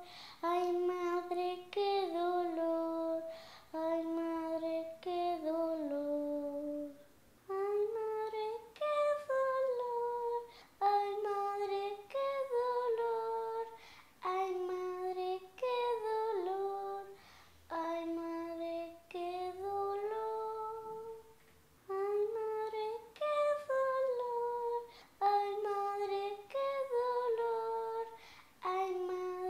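A single high voice singing a slow melody in phrases of one to two seconds, with short breaks between them.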